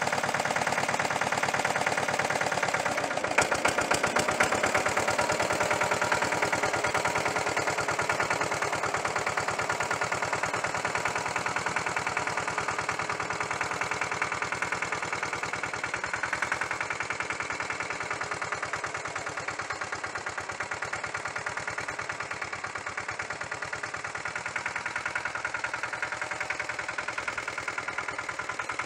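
Lombardini LDA96 single-cylinder air-cooled diesel engine on a Pasquali two-wheel tractor, running steadily with a rapid, even knock of firing pulses while the rotary tiller works the soil. It grows gradually fainter as the tractor moves away.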